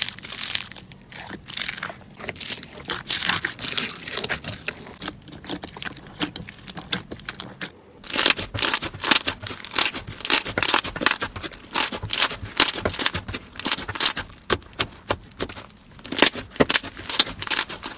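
Slime being squeezed and pressed by hand, crackling and popping in a dense run of quick clicks. It stops briefly about eight seconds in, then the clicking resumes faster and louder.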